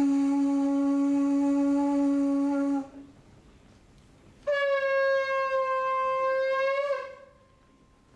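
Two long blasts on a horn, each a single held note: the first lasts nearly three seconds, and after a pause of under two seconds a second, higher note sounds for about two and a half seconds.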